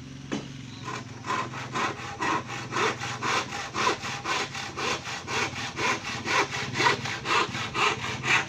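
Handsaw cutting a thin wooden slat resting on a sawhorse, in steady back-and-forth strokes of about two a second, starting about a second in.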